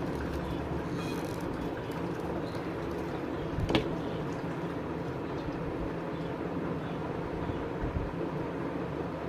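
A steady low rumbling background noise. About four seconds in comes a single sharp knock as a hot glue gun is set down on a wooden table.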